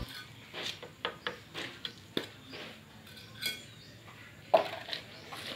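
Irregular light knocks and metallic clinks from hand tools working a cellular-concrete block out of its wooden mould: a hammer tapping the mould boards and a trowel scraping and clinking. One knock about four and a half seconds in is louder than the rest.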